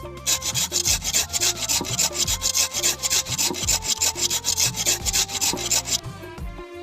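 Ash gourd being grated on a hand grater: quick rasping strokes, several a second, that stop about six seconds in.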